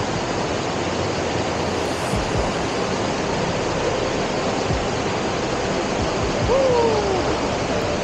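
Steady rush of a small rainforest-stream cascade pouring into a rock pool. A short call that falls in pitch sounds once near the end.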